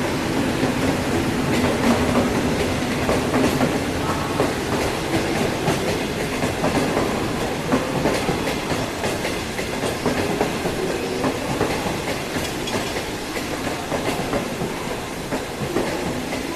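Passenger train passing close by: an HXD1D electric locomotive goes by at the start, followed by a steady run of 25T passenger coaches. The wheels rumble continuously, with many quick clicks as they cross the track.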